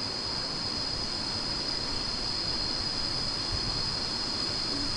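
Cicadas droning in a steady, high-pitched chorus.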